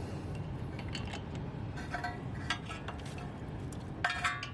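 Hand tools clinking against metal suspension parts while a brake hose line is being unbolted: a few light metallic clinks with a short ring, the loudest pair near the end.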